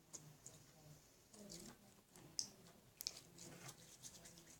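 Glitter putty being squeezed and poked in the hands: faint, irregular clicks and squishes.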